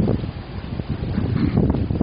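Strong gusting wind buffeting the microphone, a low rumbling blast that eases briefly and then gusts harder about a second in.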